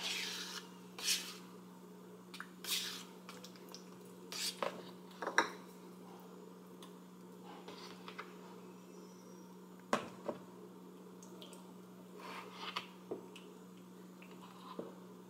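A plastic spoon scooping thick Greek yogurt from its tub and scraping it into a plastic measuring cup: faint scattered scrapes, taps and soft wet plops. A steady low hum runs underneath.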